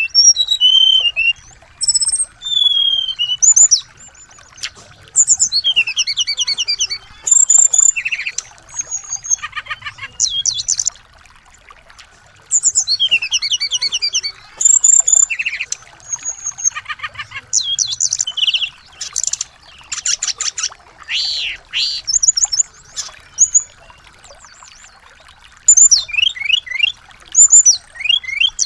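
Small songbirds singing in bursts of rapid trills, chirps and high whistles, with short pauses between phrases: a recording used as a 'masteran' lure to get a white-rumped shama to sing. A faint steady tone runs underneath.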